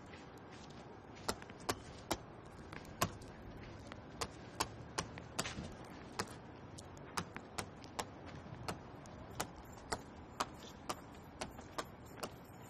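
Irregular sharp clicks and taps, roughly one or two a second and varying in loudness, over a quiet steady background.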